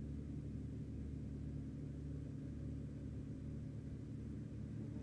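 Engine of a rice-harvesting machine running steadily at an even speed, a low hum with no change in pitch.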